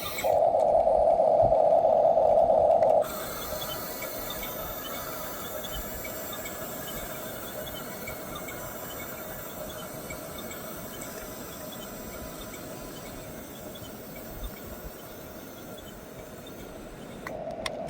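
Electric drive motors and gearing of a 1/16 RC bulldozer whining steadily. The whine is loud for the first three seconds, falls to a quieter hum with light ticking, and rises again near the end.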